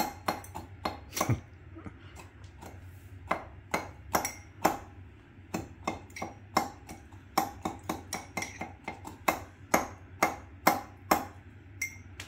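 Metal fork knocking repeatedly against the inside of a ceramic mug, bashing Oreo biscuits into a little milk. Sharp, irregular clinks, a few a second, with a short lull about two seconds in.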